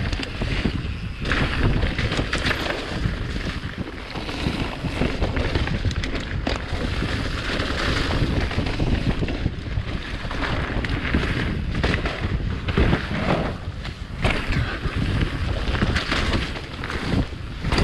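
Wind buffeting the microphone over the rumble of a mountain bike riding fast down a dirt trail: tyres rolling over dirt and leaves, with frequent clattering knocks from the bike over bumps.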